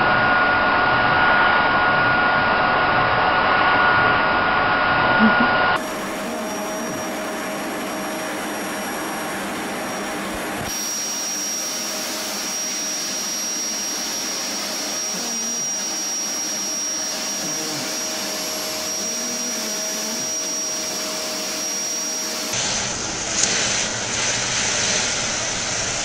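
Vacuum cleaner motors running steadily with a thin whine over the rush of air, the tone changing abruptly a few times.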